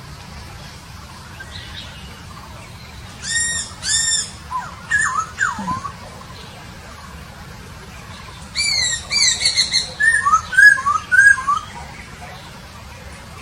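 Poksay Papua songbird singing two loud phrases of rich whistled notes, some arching and some slurring down. The second phrase is a quick run of repeated notes ending in rising-and-falling whistles.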